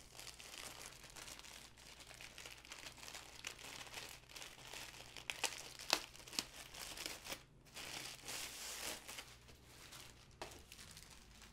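A thin white wrapper crinkling and rustling as it is pulled off a rolled canvas, with a few sharp crackles about halfway through and one more near the end.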